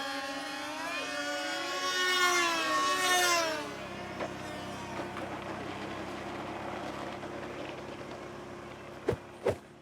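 Several model pylon-racing airplanes' engines screaming at high revs, their pitches sliding up and down as they pass. After about three and a half seconds they give way to a quieter steady hum, with two sharp clicks near the end.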